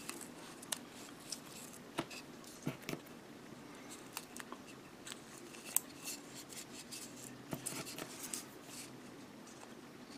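Light, irregular clicks and short scratchy rustles of small plastic model-kit parts being handled at a workbench, over a faint steady hum.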